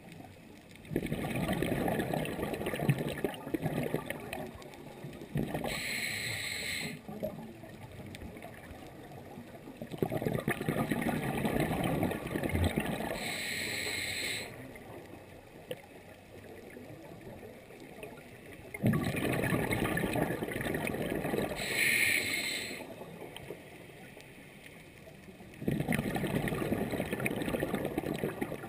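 Scuba diver breathing through a regulator underwater: each breath is a short hiss at inhalation and a few seconds of gurgling exhaled bubbles, repeating about every eight seconds.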